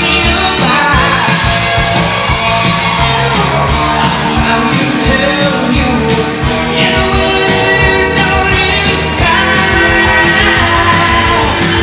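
1980s rock song with a singer over a steady driving beat, played loud.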